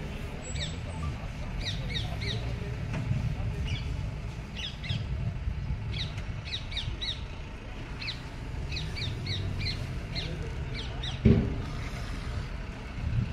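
Birds calling repeatedly in short, sharp, falling notes, at times several a second, over a low steady rumble. A single thump near the end is the loudest sound.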